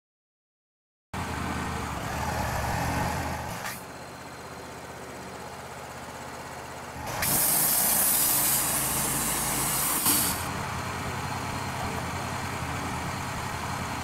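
Portable band sawmill's engine running steadily while its hydraulic loader lifts a log onto the mill, starting about a second in. Midway, a loud hiss lasts about three seconds.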